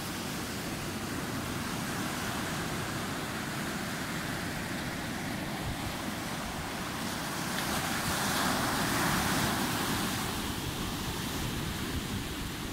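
Ocean surf breaking and washing up a sand beach, a steady hiss that swells louder about eight seconds in as a wave rushes up the shore.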